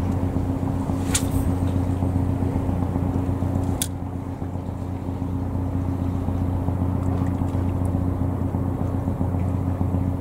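A steady low engine hum, with two sharp clicks, one about a second in and one near four seconds.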